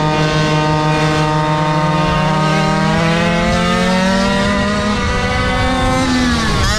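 Small two-stroke engine of a GoPed GoQuad running hard under way, its pitch holding and then slowly climbing. Near the end it dips sharply as the throttle comes off, then picks back up.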